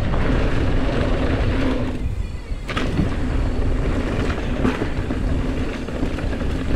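A mountain bike's knobby tyres rolling fast over a dirt jump trail, with wind buffeting the helmet camera's microphone. About two seconds in, the tyre noise drops out briefly as the bike takes a jump, and a thump marks the landing.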